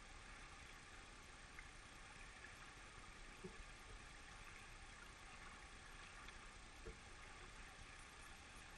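Near silence: a faint steady hiss, with two faint brief knocks about three and a half and seven seconds in.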